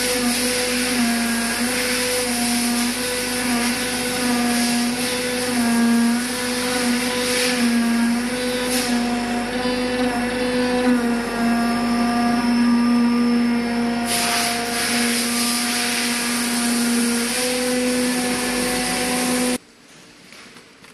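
Digital flatbed cutting machine running as it cuts corrugated cardboard: a steady mechanical hum that shifts slightly in pitch as the tool heads move, over a constant hiss. It stops abruptly near the end.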